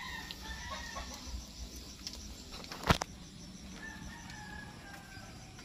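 A rooster crowing faintly: a long held call at the start and another, dropping slightly in pitch, about four seconds in, over a steady high insect chirring. A single sharp click just before three seconds is the loudest sound.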